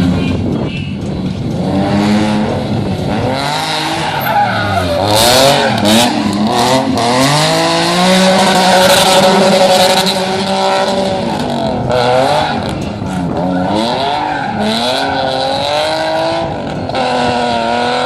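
Stunt car's engine revving, its pitch sweeping up and down again and again, while its tyres squeal and skid.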